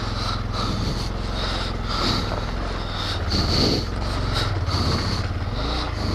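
Honda Grom's 125 cc single-cylinder engine running at low speed through soft sand, the revs rising and falling a few times. Repeated short puffs of the rider's breathing into the helmet microphone.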